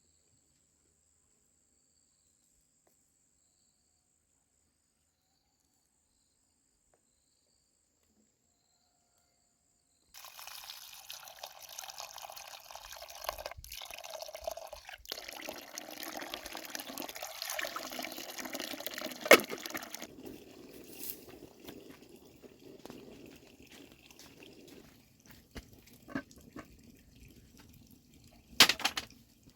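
Silent for about ten seconds, then water running and splashing, louder for about ten seconds and then softer, with a sharp knock near the middle and another near the end.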